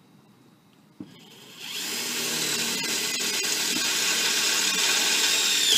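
Power drill boring a hole through a mounting plate: a click about a second in, then the motor starts about half a second later, runs steadily for about four seconds and stops sharply at the end.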